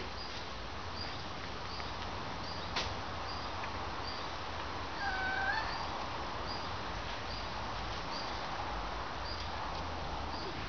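A dog gives one short, high whine about five seconds in. Behind it, a faint high chirp repeats about twice a second.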